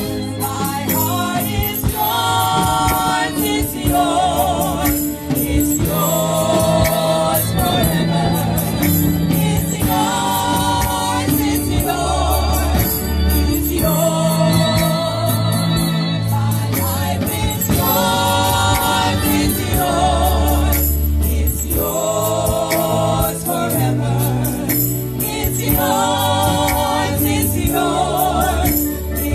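Gospel choir singing with instrumental backing: sung phrases with vibrato over held bass notes.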